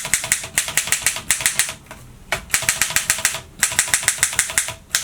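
A 1937 Erika M portable typewriter being typed on: rapid key strikes, several a second, with the typebars hitting the platen. They come in three quick runs separated by short pauses.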